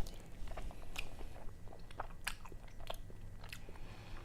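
Close-up chewing of raw sashimi: a string of short, wet mouth clicks, several a second.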